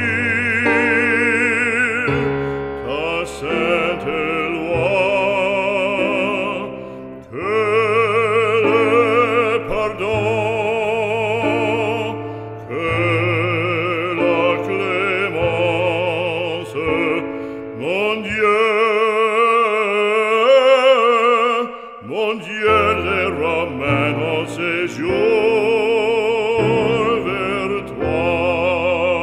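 Classical vocal music: an operatic voice singing long notes with wide vibrato over orchestral accompaniment with sustained bass notes.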